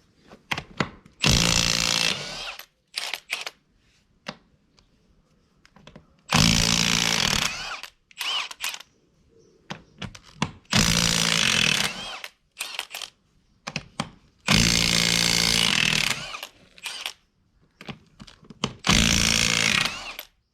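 Cordless Milwaukee impact wrench hammering off a tractor's front wheel nuts in five separate bursts of a second or two each, with short clicks and knocks between them as it moves from nut to nut.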